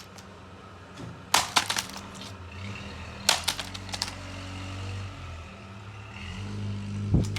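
Sledgehammer striking a laptop: three bouts of hitting, each a sharp crack followed by quick cracking and clattering of breaking plastic, the last near the end.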